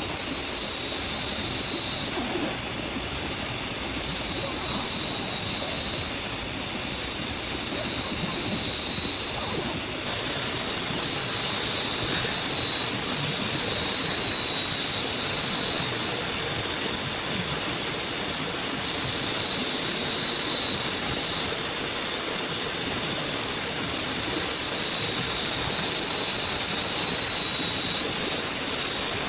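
Heavy rain falling steadily. About ten seconds in it suddenly jumps louder and hissier and stays that way.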